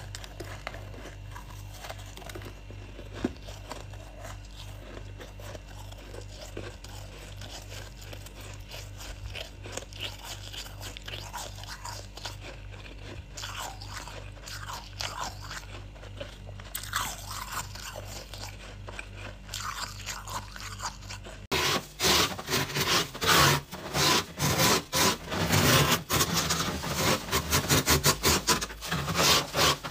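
Freezer frost being scraped off with a plastic scraper in rapid, rough, loud strokes, starting about two-thirds of the way through. Before that there are only faint scattered crackles over a low steady hum.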